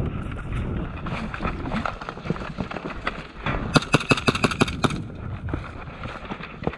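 A player running on sandy ground, with footfalls and gear rattling over a low rumble, and a rapid burst of sharp cracks for about a second near the middle, typical of airsoft gunfire.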